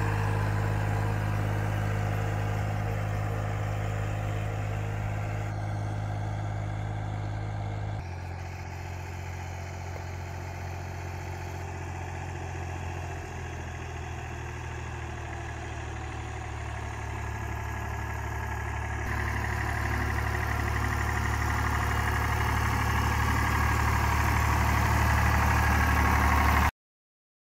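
Ford 4000 SU tractor engine running steadily under load while pulling a fertilizer spreader. It fades as the tractor moves off, then grows louder as it passes close by near the end, and cuts off suddenly just before the end.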